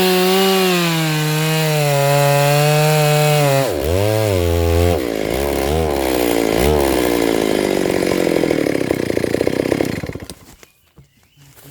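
Stihl MS 382 two-stroke chainsaw at high revs cutting through a sengon log. Nearly four seconds in the revs drop and are blipped up a few times, then the saw runs down to a slow, fluttering idle and stops about ten seconds in.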